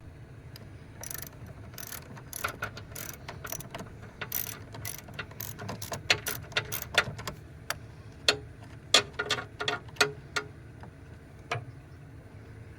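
Ratchet wrench clicking in irregular runs, loosening the battery terminal clamp to disconnect the battery and reset the truck's electronics.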